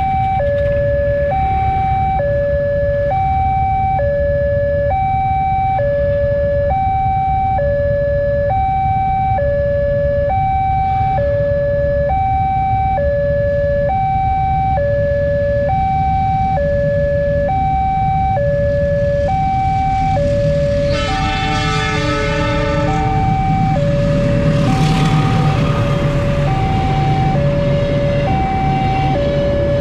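Railway level-crossing warning alarm, alternating steadily between a higher and a lower chime, a little under a second each. About two-thirds of the way through, a train horn blows for about two seconds, and then the rumble of the passing passenger train rises under the alarm.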